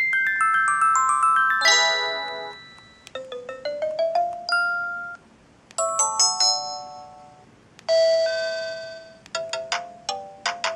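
Samsung SGH-X200 phone playing its message alert tones one after another: five or six short electronic jingles of quick beeping notes, some running down in pitch and some up, each a second or two long, as the tones are previewed in the phone's menu.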